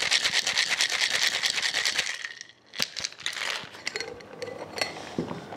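Ice cubes rattling hard inside a Boston shaker (mixing glass and metal tin) during a vigorous cocktail shake, a fast even rattle that stops a little over two seconds in. After a short pause comes a sharp knock and a few clinks as the shaker is handled and the glass is pulled from the tin.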